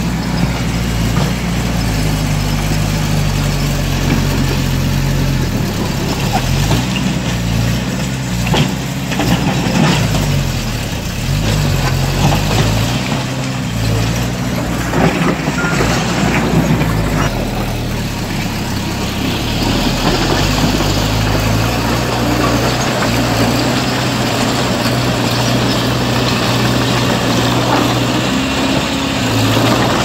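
Diesel engine of heavy earth-moving machinery running at a work site. Its pitch rises and falls between about 8 and 17 seconds in, and a few short knocks are heard.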